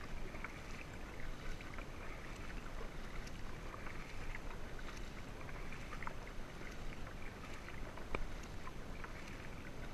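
Quiet water sounds around a kayak drifting on a creek: light lapping and dripping, with scattered small ticks and one sharper tick about eight seconds in.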